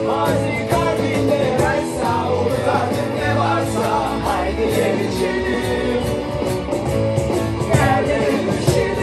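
A small group of men and women singing a Turkish song together to an acoustic guitar.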